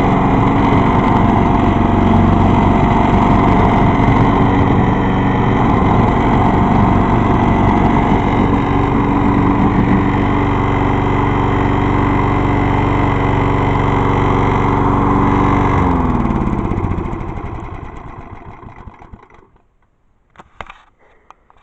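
Vintage Craftsman lawn mower engine running steadily, then shut off about 16 seconds in, its pitch dropping as it winds down to a stop. A few light clicks follow near the end.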